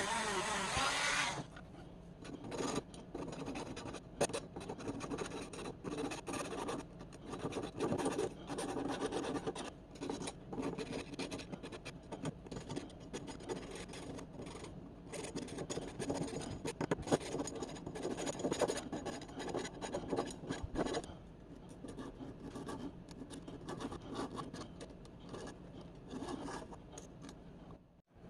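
A power tool runs and cuts off about a second in. Then comes a long run of irregular hand rubbing and scraping strokes on the pliers' rusty steel, like filing or scrubbing, a little lighter near the end.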